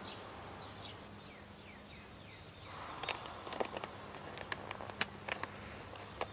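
Quiet outdoor ambience over a steady low hum: a few short falling chirps near the start, then irregular sharp clicks and knocks from about three seconds in.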